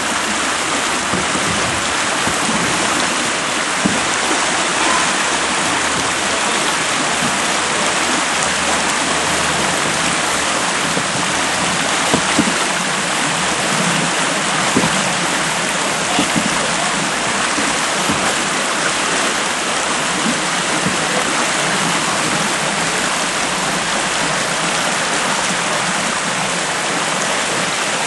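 Whitewater rushing steadily over a river rapid, with a few brief knocks now and then.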